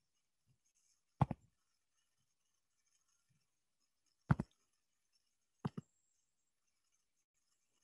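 Computer mouse clicked three times as double clicks, each a sharp pair of clicks: one about a second in and two more a few seconds later.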